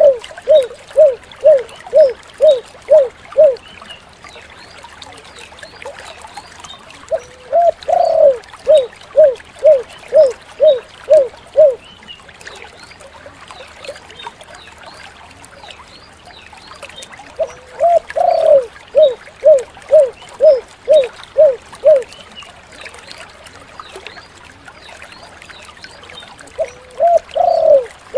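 Spotted dove (tekukur) cooing: each phrase is a drawn-out opening coo followed by seven short, evenly spaced coos, the 'kuk 7' pattern, repeated about every ten seconds. A faint steady hiss runs underneath.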